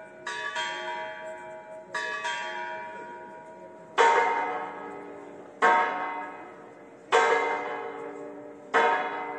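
Tower bells striking: a higher bell struck in two quick pairs, then a deeper bell struck four times, about a second and a half apart, each stroke left ringing and fading. The pattern is a clock chime followed by hour strokes.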